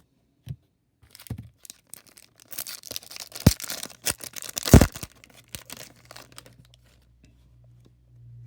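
Plastic wrapper of a trading-card pack being torn open and crinkled: a run of crackling with two sharp snaps a little over a second apart, in the middle of the stretch, and small rustles around it.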